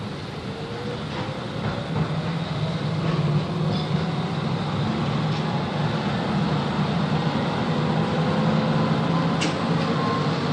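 Bremen GT4e articulated tram running and gathering speed, its motor whine rising and the running noise growing louder over the first few seconds, then holding steady. A sharp click comes near the end.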